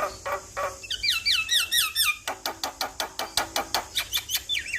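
Male Javan myna singing: a fast run of sharp clicking notes, about six a second, with runs of quick repeated whistled notes that swoop down in pitch, one run about a second in and another near the end.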